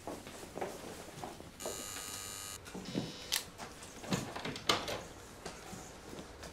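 An electronic chime about one and a half seconds in: a steady tone lasting about a second, then a shorter, higher one. Around it, scattered knocks and footsteps as a large cardboard box is carried across a small hall, the loudest knocks about three and a half and five seconds in.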